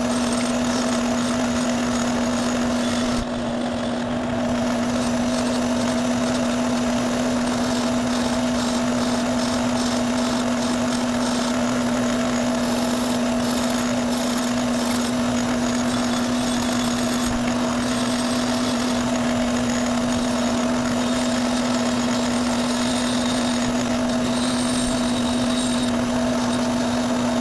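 Motor-driven buffing wheel running with a steady hum as rust is buffed off small lathe bearing caps, with a scrubbing noise over the hum. The noise dips briefly about three seconds in.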